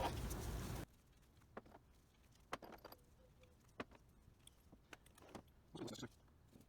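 Small metal carburettor parts being handled and set down: scattered light clicks and clinks. A steady hiss cuts off suddenly just under a second in.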